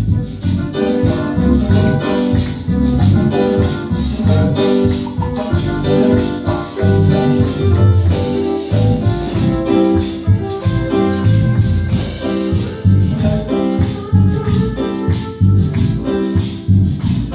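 Instrumental Latin-style praise music with a steady beat and shaken maracas.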